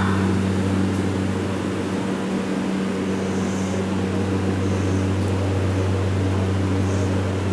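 JR Shikoku 8600 series electric train standing at the platform, giving off a steady low hum from its onboard equipment.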